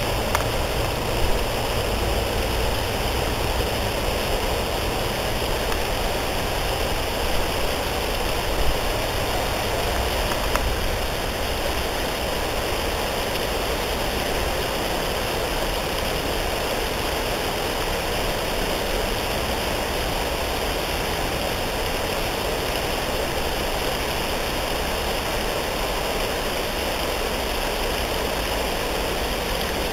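Steady rushing background noise with no distinct events. A few faint bumps come in the first ten seconds.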